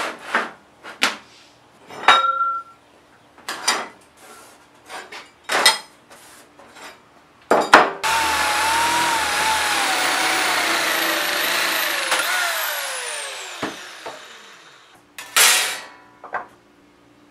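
A steel sheet being handled, with scattered knocks and clatters. Then handheld electric metal shears run for about four seconds, cutting through the sheet steel, and wind down falling in pitch when released.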